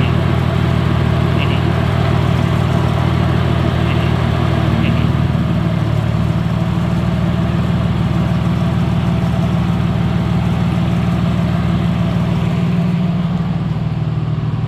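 Audi C5 3.0 V6 engine idling with a steady hum that shifts to a different pitch about five to six seconds in.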